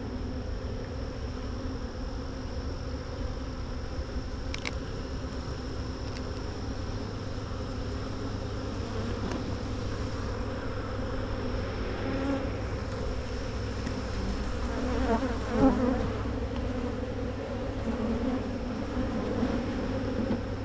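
Many honeybees buzzing around open hive boxes, a steady hum of wings. There is a faint click early on and a brief louder sound about three-quarters of the way through.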